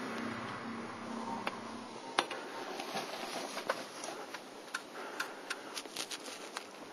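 Two wild turkey gobblers fighting: scattered sharp clicks and scuffling, coming more often toward the end.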